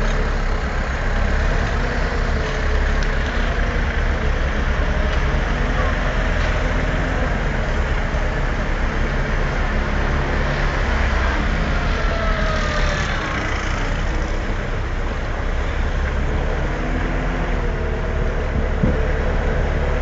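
Small lift-truck driving along with its motor running steadily.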